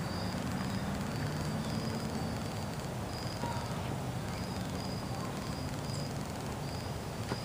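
Open-air background noise: a steady low hum under high, short insect chirps that repeat unevenly, about two or three a second.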